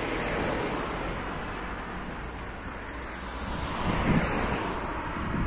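Road noise of a car passing close and driving away, a steady rush that slowly fades, with gusts of wind buffeting the microphone about four seconds in.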